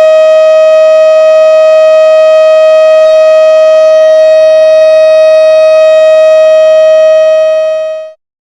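Civil defence siren sounding one steady tone that does not rise or fall; it fades near the end and stops about eight seconds in. In the Saudi siren code a steady tone is the signal that the danger is over.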